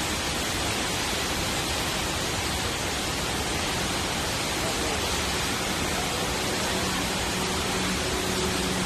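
Steady rushing of the Rain Vortex, a tall indoor waterfall pouring from a glass dome into a pool, heard as an even wash of noise. A faint low hum joins in over the last few seconds.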